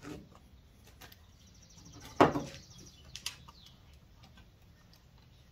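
Hand tool working on the 8 mm hex factory plug in the temperature-sender port of a GM LS cylinder head. A quick run of fine clicks leads into one sharp knock a little over two seconds in, followed by a few lighter ticks.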